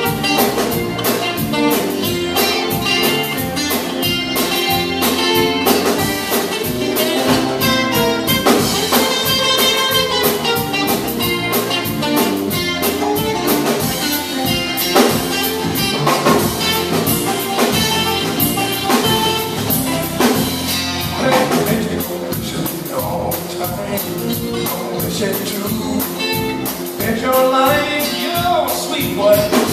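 A blues trio playing live: acoustic guitar, electric bass and drum kit, with a steady beat. The band sound thins a little about two-thirds of the way through.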